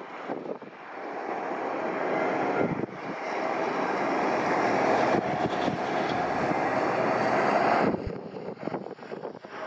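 Airbus A320-232's IAE V2500 jet engines at takeoff power on the takeoff roll: a steady roar with a held whine, building over the first couple of seconds. It drops away sharply near the end.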